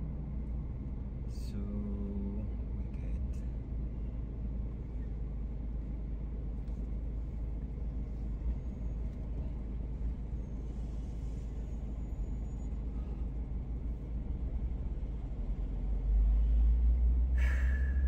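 Car cabin noise while driving: a steady low rumble of engine and tyres, which grows louder for about the last two seconds.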